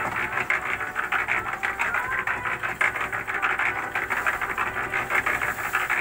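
GEPCO mini concrete mixer running with its drum empty, turning with a steady fast rattle of roughly eight to ten clicks a second.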